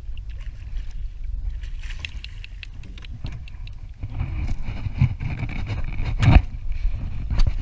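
Wind buffeting the microphone and water lapping against a small skiff's hull, with scattered light clicks and one loud knock about six seconds in.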